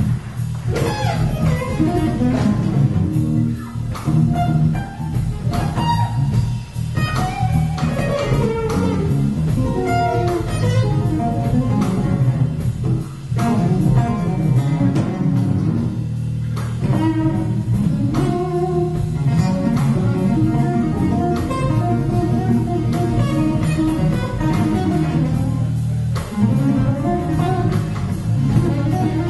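Amplified acoustic guitar played live, with rapid picked notes and sharp struck chords, over an electric bass line. Instrumental, with no singing.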